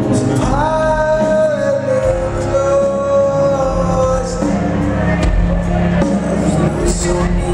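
Rock band playing live, with electric guitars, bass and drums under a male lead singer. About half a second in, the voice slides up into a long held note, followed by further sung lines.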